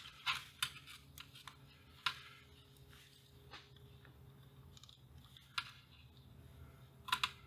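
Scattered small clicks and crackles of a film capacitor being wiggled and pulled out of an old circuit board by hand, with a short cluster of sharper clicks near the end, over a faint steady hum.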